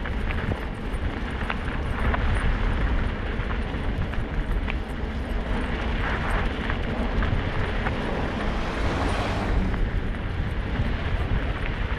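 Steady rolling rumble of a Kickbike Fat Max kick scooter running over packed snow, mixed with wind rushing on the microphone, and a few light clicks.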